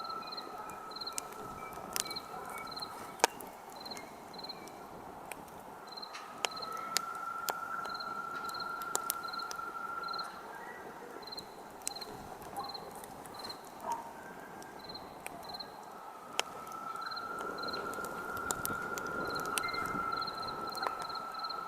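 Wood campfire crackling with scattered sharp pops, over crickets chirping steadily and a lower, steady insect trill that fades out and back in twice.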